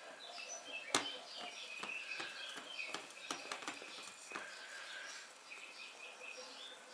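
Batter being stirred by hand in a ceramic bowl: the utensil scrapes and clinks against the bowl, with a sharp clink about a second in and lighter ones later. Short high squeaky chirps run alongside.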